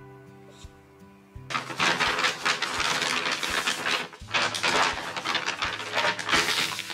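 Large brown paper shopping bag being handled and folded, crinkling loudly in irregular bursts with short pauses, starting about a second and a half in, over soft background music with a steady beat.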